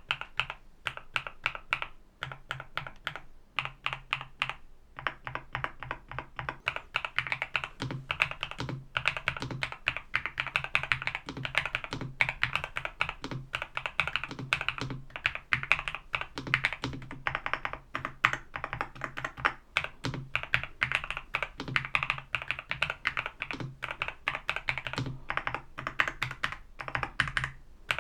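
Fast, continuous typing on a NuPhy Halo65 V2 65% mechanical keyboard: a dense run of keystroke clicks with brief pauses now and then.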